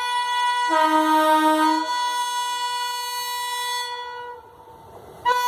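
WAP7 electric locomotive's horn sounding a long blast, a lower second tone joining it briefly near the start; the blast cuts off after about four seconds and the horn sounds again right at the end.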